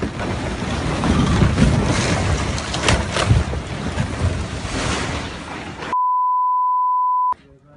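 Large rockslide coming down: a loud rumble of falling rock with a few sharp cracks, cut off abruptly about six seconds in. A steady censor bleep tone follows for about a second and a half.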